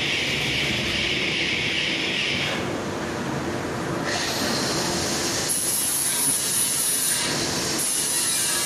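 Hanging-type shot blasting machine running: a loud, steady rushing noise that shifts in character about two and a half and four seconds in, with a high thin whine coming in about five and a half seconds in and sliding slightly down.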